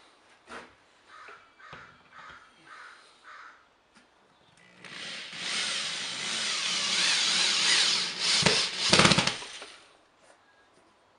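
Cordless drill driving a screw through a galvanized steel L-bracket into the wall, running steadily for about five seconds and loudest just before it stops.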